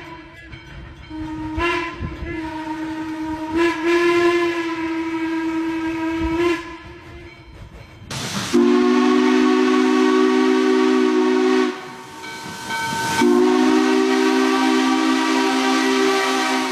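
Steam locomotive No. 1309's whistle blowing. First comes one long single-pitched blast over the rumble of the moving train, lasting about six seconds with a couple of brief dips. Then, with steam hissing, come two long blasts of a chime whistle sounding several tones together, each about three seconds.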